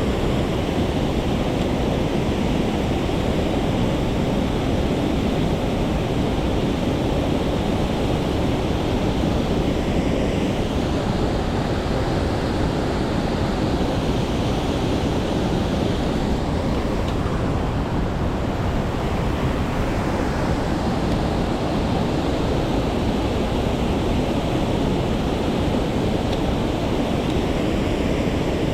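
Mountain stream rushing steadily over rocks, an unbroken roar of water.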